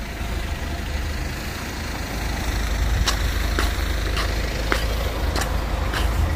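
Footsteps crunching in snow, about two a second, starting about three seconds in, over a steady low rumble.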